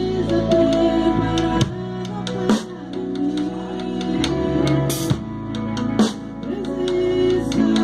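Live band playing an instrumental passage: a drum kit keeps time with regular hits and a cymbal crash about five seconds in, over sustained electric guitar, bass and keyboard.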